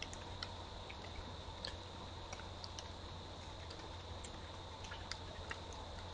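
Steady background hiss and hum with scattered faint ticks and clicks at irregular intervals.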